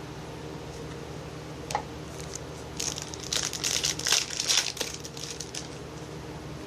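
Plastic wrapper of a trading-card pack crinkling as it is handled, a run of crackles in the middle after a single click near the start.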